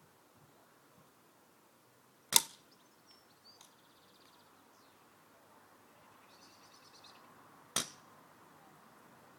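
Two shots from a BSA Scorpion T10 pre-charged air rifle, each a sharp crack with a short tail, about five seconds apart.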